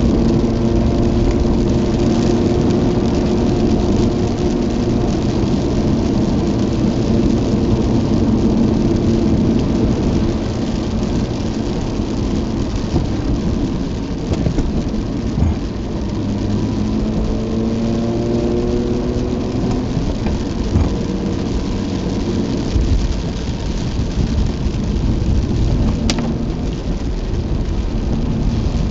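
Cabin noise of a Mazda RX-8 driving on a rain-soaked road: a low, steady rumble of tyres and rain, with the twin-rotor rotary engine's note heard near the start and rising slightly again about two-thirds of the way in.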